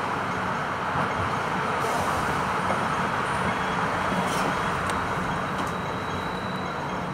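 Hong Kong double-decker electric tram riding along its tracks: a steady running noise of wheels on rails and a constant low hum, heard from the upper deck.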